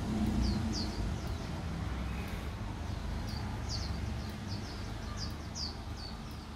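Electric swing-gate operators running as the two steel gate leaves close, a low hum that fades over the first second and leaves a low rumble that eases off toward the end. Small birds chirp repeatedly over it throughout.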